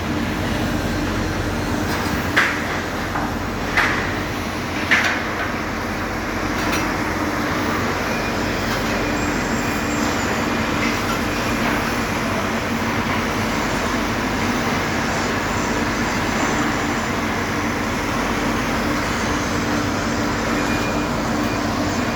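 Steady machinery rumble with a low hum, and three short sharp knocks between about two and five seconds in.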